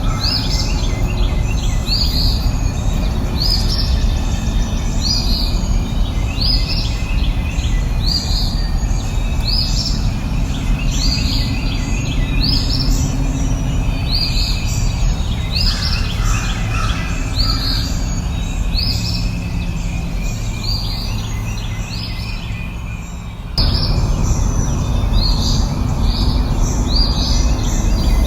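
A songbird repeating a short, high, falling chirp about once a second over a steady low rushing background. Near the end the background dips, then cuts back in abruptly.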